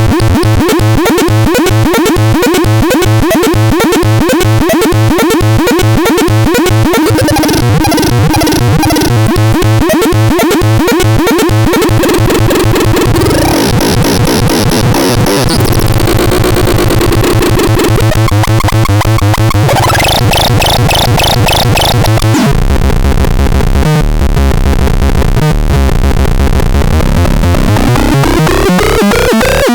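Harsh electronic synthesizer sounds: a fast pulsing pattern over a held low tone that changes character every few seconds, ending with a steadily rising pitch sweep.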